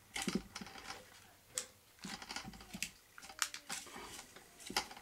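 A disc of metal segments being gripped, turned and spun by hand on a bearing: irregular clicks and knocks from hands and metal.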